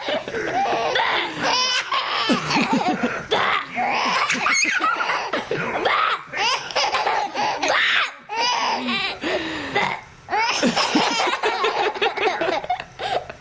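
A baby laughing hard in repeated fits of belly laughter, set off by fake burps made between the laughs. The laughter breaks off briefly twice near the end.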